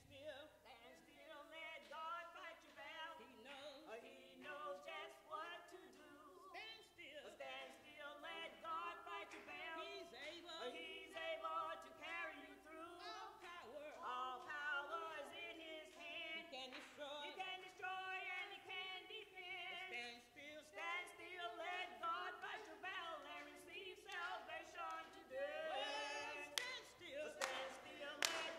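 Three women singing a hymn together unaccompanied, in close harmony. Hand-clapping joins in near the end.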